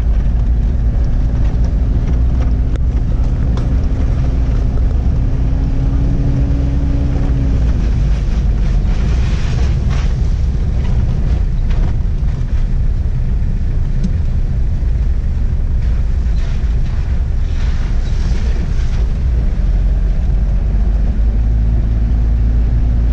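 A car's engine and road noise are heard from inside the cabin, driving on a wet dirt road. The engine note rises a little, then drops away about eight seconds in and comes back near the end. Short bursts of hiss come from the tyres on the wet surface around ten seconds in and again a little later.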